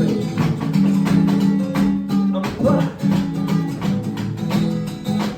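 Live rock and roll band playing an instrumental passage with no singing: guitar holding chords over drums keeping a steady beat.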